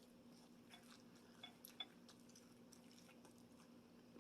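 Near silence: faint, scattered mouth clicks of someone chewing a meatball, over a low steady hum.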